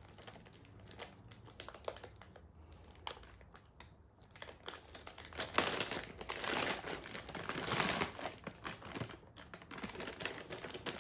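Plastic vacuum-bag film crinkling and crackling as it is handled and opened around a freshly moulded carbon-fibre mudguard. Faint at first, then louder and busier from about halfway through.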